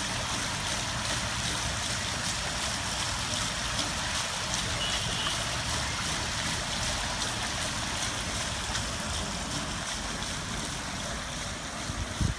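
Fountain water spilling over the rim of its basin and splashing steadily onto the surface below.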